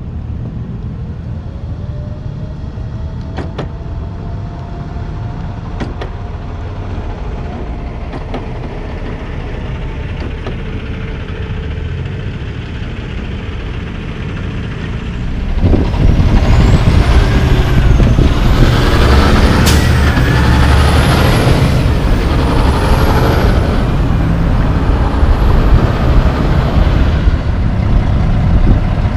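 Diesel semi trucks passing through traffic: a steady low engine rumble, then about fifteen seconds in a louder truck engine close by, with a high wavering whine over it and a single sharp click.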